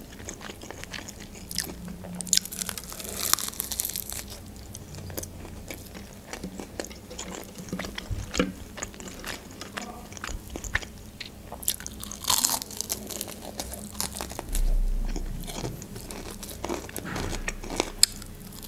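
Close-up biting and chewing of crispy breaded fried chicken strips. The hard breading crunches in two main bouts, a few seconds in and again about twelve seconds in, with small wet mouth clicks in between.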